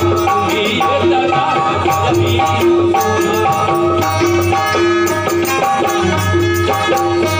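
Live folk music: harmonium playing held tones, a singing voice, and hand percussion rattling in a steady rhythm of about two beats a second.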